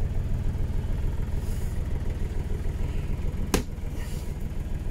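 A steady low rumble of an engine running at idle, with a single sharp click about three and a half seconds in.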